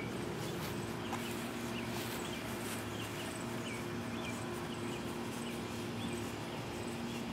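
Outdoor ambience: small birds chirping in short, repeated calls over a steady low hum.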